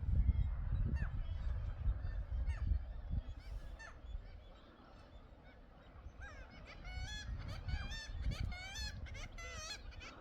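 Wind buffeting the microphone for the first few seconds, then from about six seconds in, many birds calling together in quick, overlapping, wavering calls.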